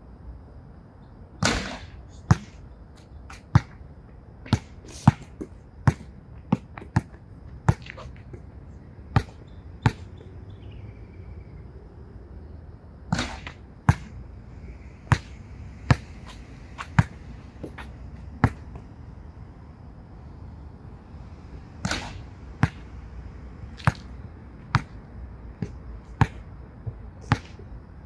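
Basketball bouncing on an outdoor hard court, sharp single bounces every half second to a second as the shooter dribbles and retrieves the ball. Three times, roughly ten seconds apart, a louder, longer bang breaks in: the ball banking off the backboard on a free-throw bank shot.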